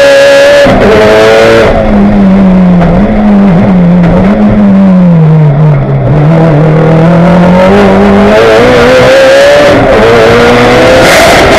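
Mitsubishi Lancer Evolution's turbocharged four-cylinder engine heard loud from inside the cabin on track. It pulls hard at first, then eases off about two seconds in, sags lower and rises again, and climbs in pitch near the end.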